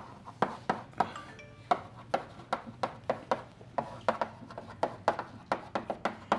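Chalk writing on a blackboard: a quick, irregular run of sharp taps and short scrapes as the chalk strikes and drags across the board, about three or four a second.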